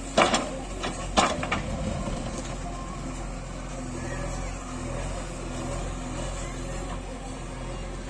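JCB 3DX backhoe loader's diesel engine running steadily under working load as the backhoe digs and lifts a bucket of soil. Near the start there are two sharp knocks about a second apart.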